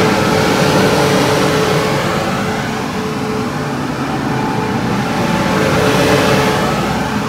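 Taiwan Railways E1000 push-pull Tze-Chiang express pulling out of an underground platform: the electric power car and coaches run past with steady rolling noise and a humming tone that swells near the start and again about six seconds in, echoing off the enclosed station.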